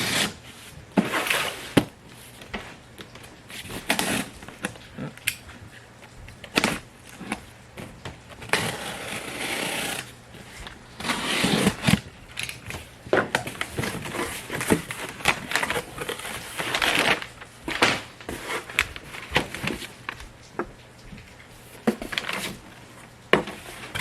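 A cardboard shipping box being opened and its contents handled: scattered knocks and clicks, with a few longer stretches of rustling packing material.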